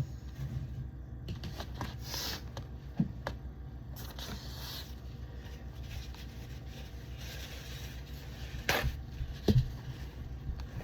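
Scraping and scrubbing at stuck-on grime inside a refrigerator, in short scratchy bouts with light knocks, over a steady low hum. A couple of sharper knocks come near the end.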